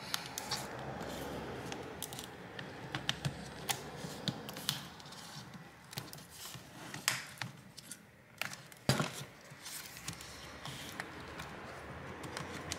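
Plastic scraping and scattered sharp clicks as a replacement battery pack is pushed and shifted into the battery bay of an Acer Aspire E5-575 laptop, which is reluctant to lock into position. The sharpest click comes about nine seconds in.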